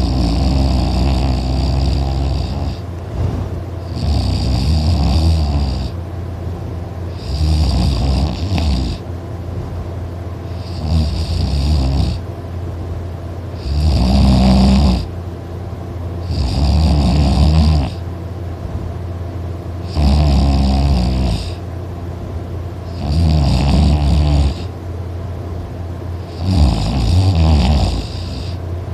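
A person snoring very loud, one snore about every three seconds in a steady rhythm, with quieter breathing between the snores.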